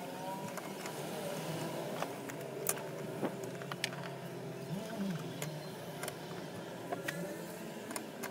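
Proxxon mini lathe motor running steadily, with scattered sharp clicks.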